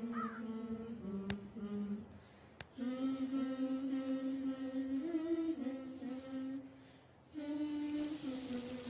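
Soft background music: a slow wordless vocal melody, hummed, with long held notes in three phrases separated by short pauses.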